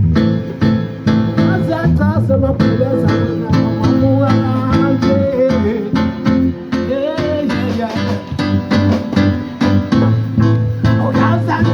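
Live band music led by guitar, with a steady beat.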